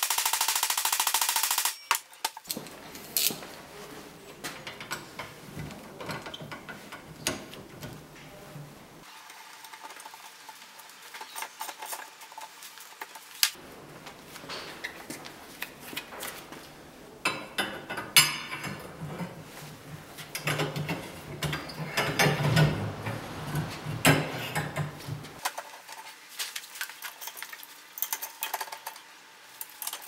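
Bicycle stem, handlebars and hand tools being handled: a loud, dense rattle for about the first two seconds, then scattered metallic clicks, clinks and knocks of metal parts going together.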